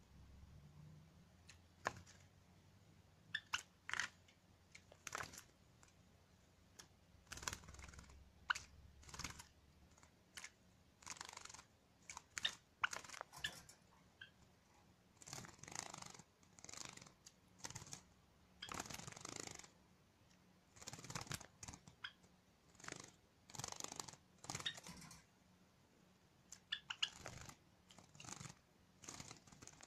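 A sakura Java sparrow bathing in a shallow dish of water: quiet splashing in repeated short bursts, sparse at first and then coming about once a second, with small sharp ticks among them.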